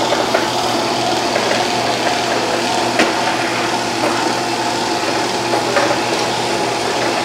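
Shark IQ Self-Empty XL robot vacuum running on a hard floor: a steady whirring hum of its suction motor and brush roll, with a single click about three seconds in.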